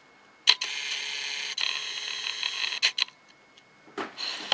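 Camera lens autofocus motor whirring for about two and a half seconds while it hunts for focus, with a click as it starts, another partway through and a couple more as it stops.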